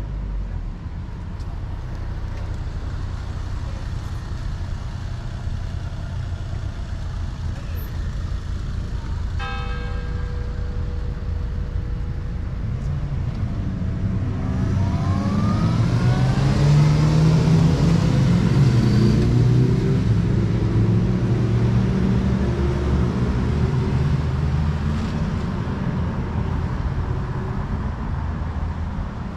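Street traffic: a car drives past, its engine rising in pitch as it accelerates. It grows loudest just past halfway and then fades, over a steady low rumble of road noise.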